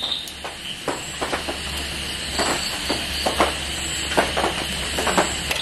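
Chicken leg quarters sizzling on a charcoal grill over hot coals: a steady hiss with irregular crackles and pops, the freshly turned side searing.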